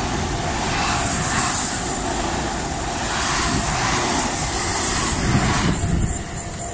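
ICE 3 high-speed electric train passing close at speed: a steady rush of wheels on rail and air with a high hiss on top, falling off about six seconds in as the last car goes by.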